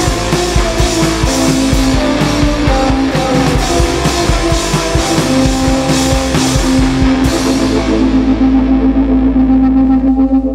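Rock band playing live with guitar and drums. About seven seconds in the drums stop and a held chord rings on.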